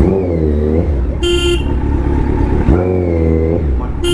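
Kawasaki Z900's inline-four engine running in traffic, its pitch dipping and rising twice. A vehicle horn honks briefly about a second in and again at the very end.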